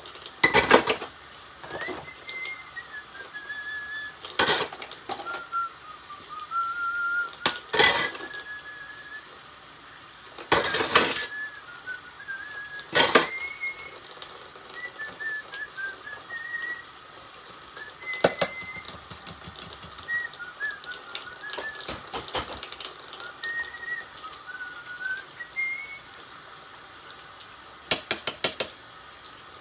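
A person whistling a slow, wandering tune, one note at a time, while dishes and pots clatter loudly every few seconds during kitchen work.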